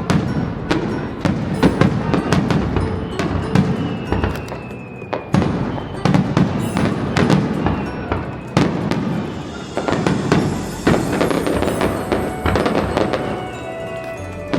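Fireworks going off in a rapid, dense string of bangs and crackles, with music playing alongside.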